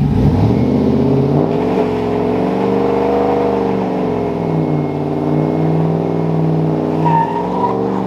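A 1995 Ford F-150's 5.0 V8 running at idle, a steady engine note whose pitch wavers slightly up and down.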